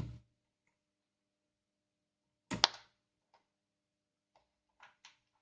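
Sharp knocks and clicks of tools and parts being handled on a workbench: one at the start, a louder knock about two and a half seconds in, and a few light taps near the end.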